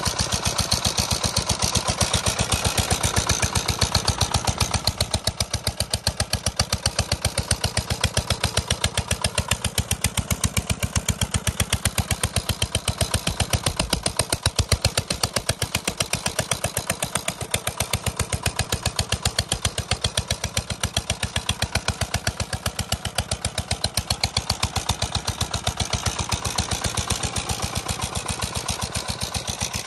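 Single-cylinder horizontal diesel engine running steadily at an even speed, with a rapid, regular knock from each firing stroke; it is belt-driving an air compressor pump and a water pump.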